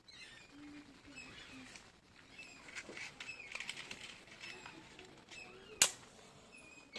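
Light crackling and rustling as the fire is laid with paper and a splash of used oil, then one sharp click about six seconds in. Faint short chirps sound throughout.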